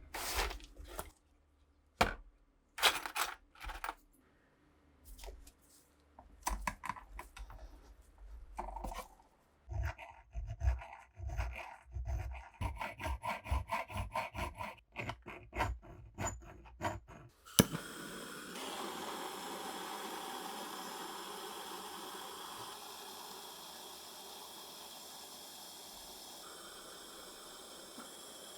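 Small metal pistol parts being handled and worked by hand: scattered clicks and knocks, then a run of quick rubbing or scraping strokes. After a sharp click about two-thirds of the way through, a steady hiss starts and slowly fades.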